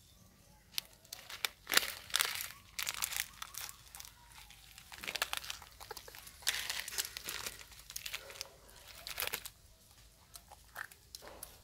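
Macaques crunching dry, uncooked noodles: irregular clusters of sharp crackles and snaps, with quieter gaps between them.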